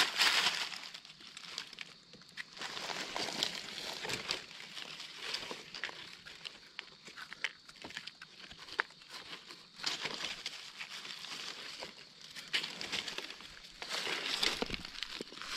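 Dry leaf litter rustling and crackling underfoot and under hand, with scattered sharp snaps of twigs, irregular throughout and busiest at the start and again near the end.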